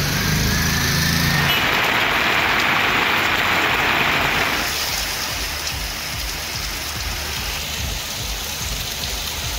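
Rain falling steadily, with motor-vehicle traffic on a wet road: an engine hum at the start, then a louder spray hiss for about three seconds from a second and a half in, before it settles back to a softer steady rain hiss.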